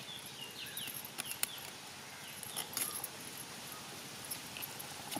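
A bird chirping over and over in short high notes, over a steady high insect hiss. A few sharp clicks and cracks come in the first half, as crab shell is cut against an upright fixed blade (a boti).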